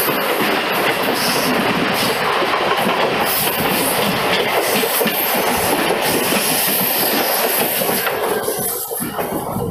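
Mumbai suburban electric local train running, heard from its open doorway: a steady loud rush of wheel and air noise with clatter over the rail joints. The hiss thins out near the end.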